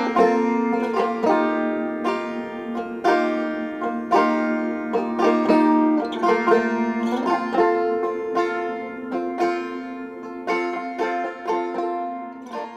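Background music: an instrumental tune of quickly plucked string notes, getting gradually quieter toward the end.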